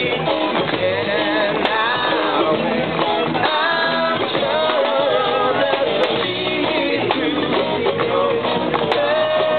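Live rock band playing electric guitars and a drum kit, with a singing voice over the music.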